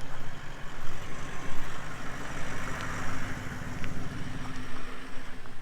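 A vehicle's engine and road rumble, heard as it drives along, with a swell of hiss near the middle.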